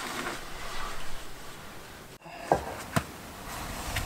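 Scrapes and knocks of a climber's shoes and gear against sandstone while working up a narrow canyon chimney, over a steady hiss. Just past halfway there are two sharp knocks about half a second apart.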